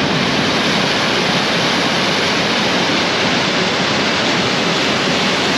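Large waterfall in spate, raging after heavy rainfall: a loud, steady rush of water.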